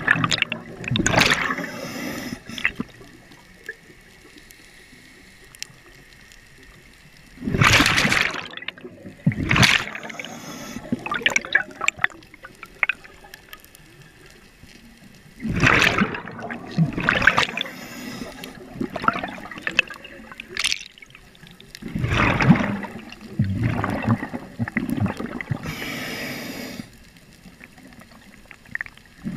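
Scuba diver's exhaled bubbles from the regulator, heard through the GoPro's underwater housing: four bubbling bursts, each a few seconds long, with quiet breaks between breaths.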